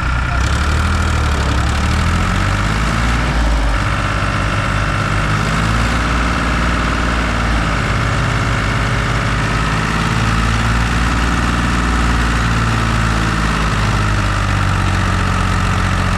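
Heavy diesel engine of a tractor or backhoe loader running steadily, its speed rising and falling a few times.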